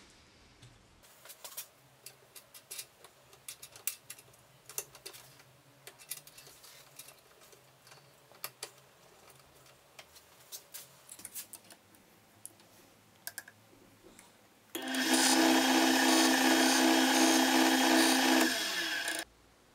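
Small benchtop woodturning lathe's motor running at speed for about four seconds, a steady loud whine, then switched off and winding down. Before it come scattered light clicks and knocks as the metal chuck and the spindle lock are handled.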